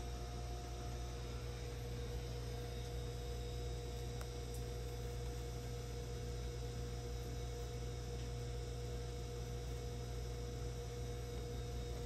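Steady electrical hum with a couple of faint, constant higher tones; nothing else stands out.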